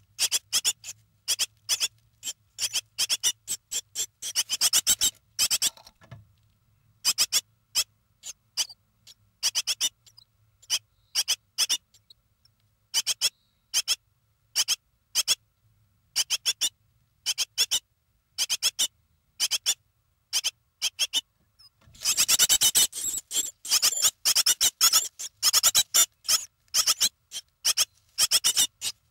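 Nestling birds in the nest cheeping: runs of short, high-pitched begging calls, thickest about three-quarters of the way in, over a faint low electrical hum.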